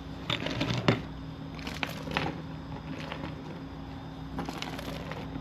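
Short clusters of light plastic clicks and crackles, four or so, from a 3D-printed plastic figure being handled, over a steady low hum.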